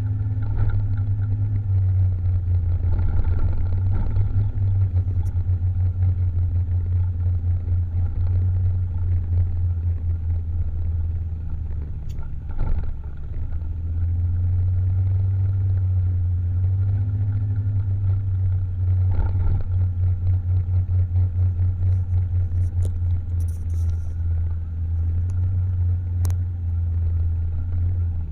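Motor scooter being ridden: a steady, fluttering rumble of engine and wind on the on-board microphone, easing briefly about halfway through.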